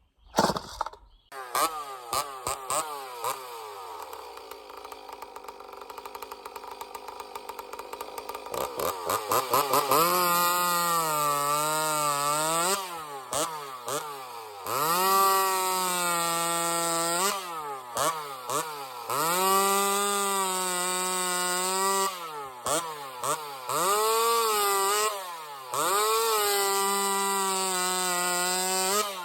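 62 cc two-stroke chainsaw running on 90–91 octane non-ethanol fuel mixed 50:1. It idles for several seconds, then runs at full throttle through several cuts in wood, the pitch sagging under load and dropping off between cuts.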